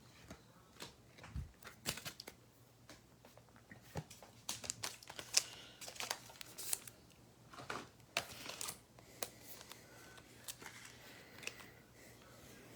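Trading cards and pack wrappers being handled: scattered light clicks, taps and short rustles of card stock and wrapper.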